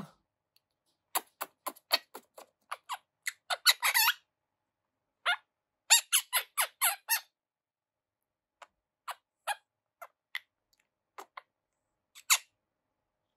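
Eleven-week-old monk parakeet (Quaker parrot) chattering in quick runs of short, squeaky chirps, then a few scattered single chirps, the loudest near the end.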